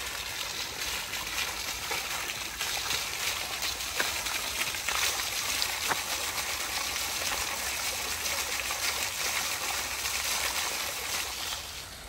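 Ornamental fountain: a single water jet falling back into its basin and pond, a steady splashing.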